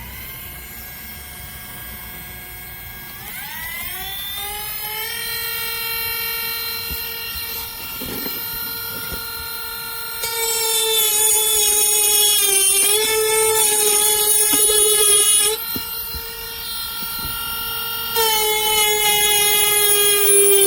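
Cordless 8V rotary tool's motor running with a high, steady whine. It speeds up about four seconds in, then turns louder with added hiss at about ten seconds and again near the end.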